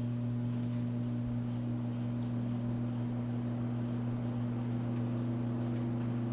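Early-1960s General Electric F11W22 20-inch box fan running steadily on low speed. Its motor gives a steady electrical buzz, a low hum with a tone an octave above, over a light rush of air. These single-bearing motors typically buzz a little.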